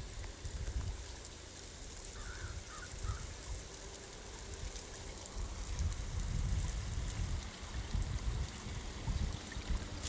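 Water trickling and running as in a small stream, a steady wash with an uneven low rumble, with a few brief distant bird calls about two to three seconds in.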